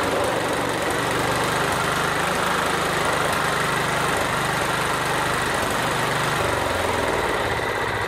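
John Deere STX46 riding mower engine running steadily after its PTO switch was rewired; its note drops lower about six and a half seconds in.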